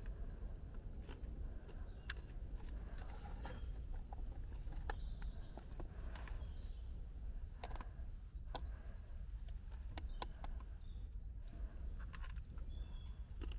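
Forest ambience: scattered short bird chirps over a steady low rumble, with irregular light clicks and knocks.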